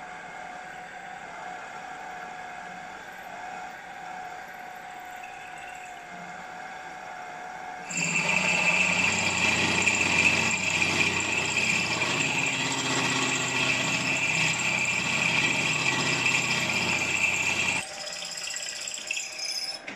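Pillar drill running and drilling a hole through a model traction engine's steam chest casting. A steady motor hum with a fixed tone is joined about 8 s in by a much louder, grating cutting noise as the bit bites into the metal, which stops suddenly about two seconds before the end, leaving the quieter running sound.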